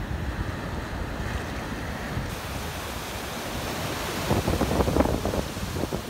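Shore-break surf breaking and washing in, with wind noise on the microphone. A louder spell of splashing comes about four seconds in.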